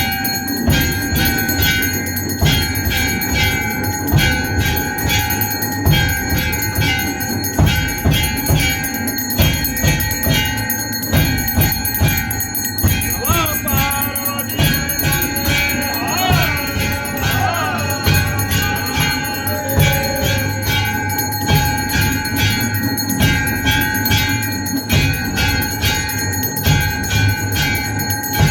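Hindu temple aarti: bells rung continuously in rapid strokes over a dense low thumping beat. Near the middle a voice calls out briefly above the ringing.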